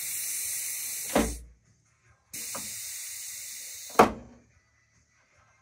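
Pneumatic landing-gear retract on a scale Bearcat model cycling twice, its restrictors open so the leg moves fast: each stroke is a hiss of compressed air through the valve, ending in a clunk as the long-stroke cylinder drives the leg against its stop. The second clunk, about four seconds in, is the loudest.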